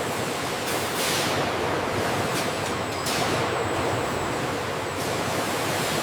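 Steady, even noise of factory machinery running, with no distinct knocks or rhythm.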